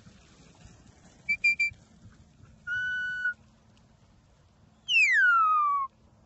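Handler's whistle commands to a working sheepdog: three short high pips about a second in, then a steady held note, then a long note sliding down in pitch near the end.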